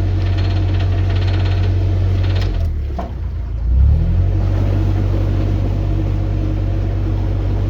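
Narrowboat diesel engine running at low revs while the boat is manoeuvred in reverse. Its note dips about two and a half seconds in, then picks up with a brief rise near four seconds before settling back to a steady hum.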